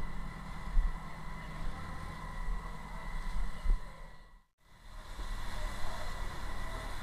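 Steady low engine-like rumble with a faint steady whine, typical of a fire engine's pump running to supply a hose during damping-down of a fire. The sound drops out briefly about four and a half seconds in, then the same drone resumes.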